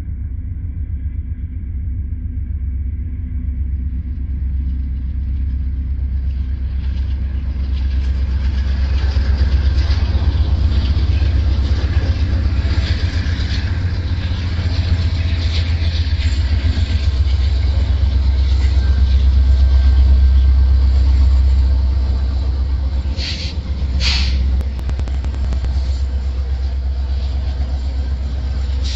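CN diesel-hauled freight train rolling past, a steady low rumble that builds as the locomotives and tank cars go by. Two brief high squeals sound near the end.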